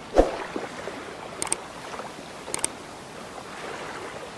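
Intro sound effects: a steady water-like rushing noise with a thump just after the start, and two sharp double clicks about a second apart, the mouse-click effects of a subscribe button and notification bell animation.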